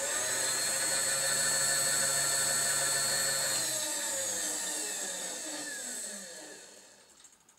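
AL-310S X-axis power feed on an HBM 45 Profi mill-drill running, its electric motor giving a steady whine. About halfway through the whine falls in pitch and fades away over a few seconds as the feed winds down.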